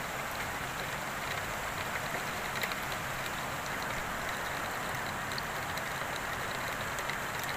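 Heavy rain falling steadily, a dense even hiss dotted with scattered ticks of individual drops.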